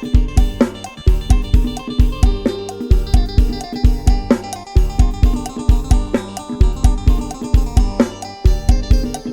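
Isan Thai lam sing instrumental in the Lai Hae pattern: a sampled drum kit and bass keep a steady driving beat about twice a second, under a plucked phin-style melody.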